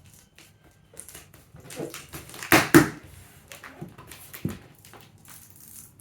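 A cardboard box being forced open by hand: packing tape and cardboard crackling, scraping and tearing in uneven bursts, loudest about two and a half seconds in.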